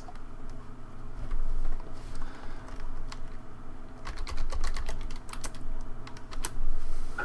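Typing on a computer keyboard: scattered keystrokes, then a quick run of clicks about four seconds in as a file name is typed.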